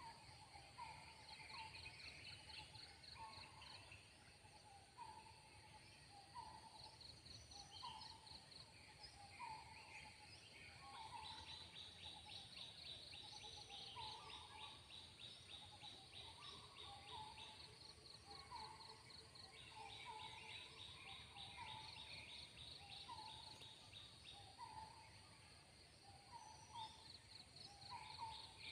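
Faint forest ambience: a bird repeats a short note about once a second over insects. The insects trill in fast pulses that start and stop, over a steady high-pitched whine.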